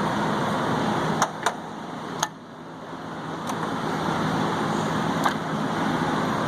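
Hand tools clicking against metal as they are handled in a toolbox drawer: about five separate clicks, the sharpest a little over two seconds in, over a steady background hum.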